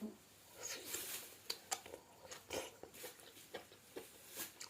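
Close-up eating sounds of a person chewing seblak, with irregular wet mouth clicks and smacks.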